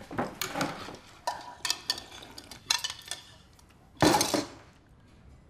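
Chopsticks and spoons clinking and scraping against bowls of noodle soup as two people eat, with one loud rush of noise about four seconds in.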